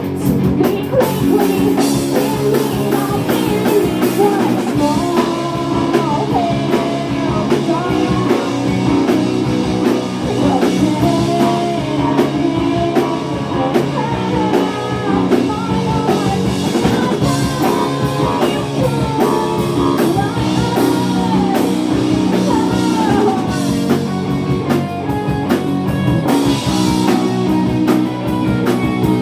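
Live rock band playing, with a singer's voice over electric guitar and drum kit.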